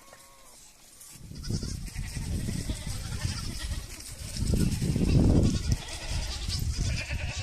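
Goats bleating, with a loud low rumble that rises about a second in and is strongest in the middle.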